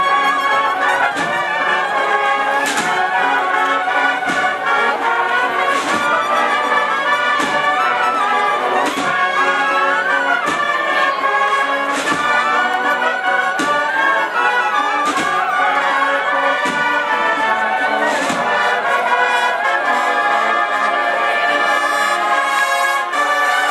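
A Spanish cornet-and-drum band (banda de cornetas y tambores) striking up and playing a processional march. Massed cornets carry the melody over the drums, with a heavy stroke across the whole band about every second and a half.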